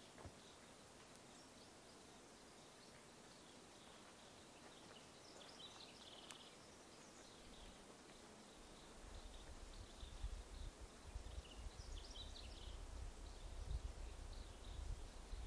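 Faint, scattered high chirps of small birds over quiet forest background. From about nine seconds in, a low, uneven rumble sets in and grows.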